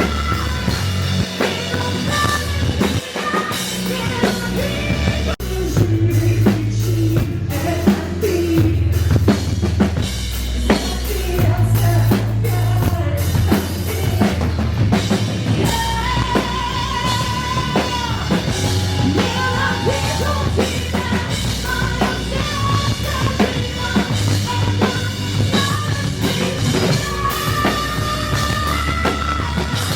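Live rock band playing: drum kit and bass driving a steady beat, with a singing voice on top. The music changes abruptly about five seconds in, as at an edit.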